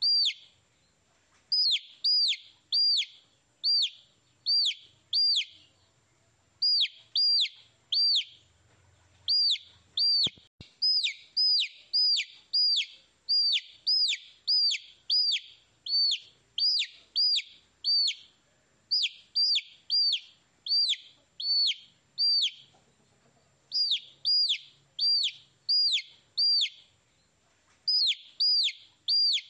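Baby chicks chirping: short, high peeps that fall in pitch, repeated in quick runs of two or three without a break.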